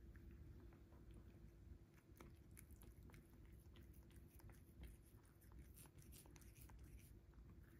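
Faint, quick clicks and smacks of a cat chewing and licking its lips after taking food from fingers, over a faint steady hum.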